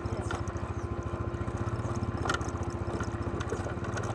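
ATV engine running at low revs over a rocky downhill trail, with a fast, even low pulsing and a steady hum. Scattered rattles, and one sharp knock about two seconds in.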